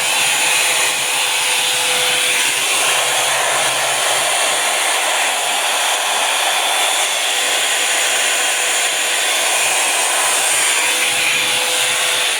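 Revlon Volumizer Plus hot-air brush hair dryer running with a steady rush of blown air and a faint constant hum; it cuts off suddenly at the very end.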